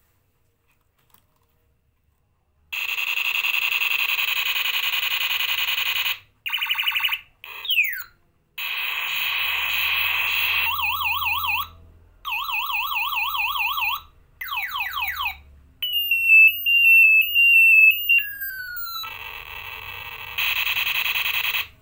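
Red plastic toy ray gun sounding its electronic sound effects through a small speaker, one after another with short gaps: a steady electronic buzz, quick falling zaps, a fast warbling siren, and a stepping run of falling beeps.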